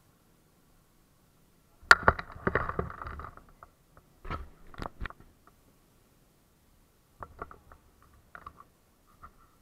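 Handling noise on the camera: a sharp knock about two seconds in, followed by rubbing and scraping, then a few separate clicks and scattered light taps.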